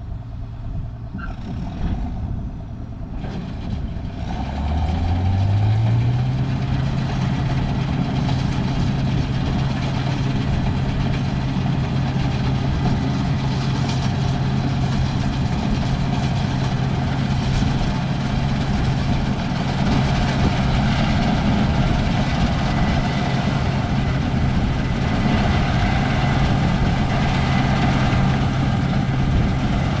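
Combine harvester's diesel engine throttled up about four seconds in, its pitch climbing over about two seconds and then holding steady at full operating speed for cutting wheat.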